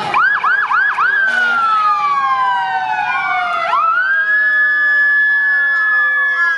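Emergency-vehicle sirens sounding: a quick run of rising-and-falling whoops in the first second, then a long falling glide, then a rise to a high tone held for the last couple of seconds. A second, lower siren falls slowly underneath.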